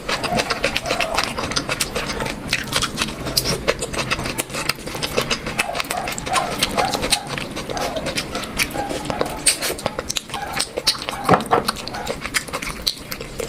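Close-up eating sounds: wet chewing and lip-smacking on rice and curry, a steady run of quick clicks and smacks with faint murmurs in between.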